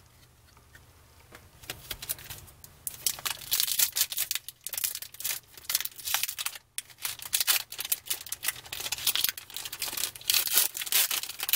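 Foil trading-card pack wrapper being torn open and crinkled by hand: a dense crackling that starts about two seconds in, with one brief pause midway.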